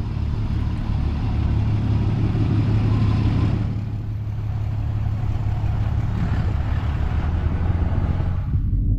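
A large engine idling, a steady low rumble with a noisy hiss over it that eases a few seconds in.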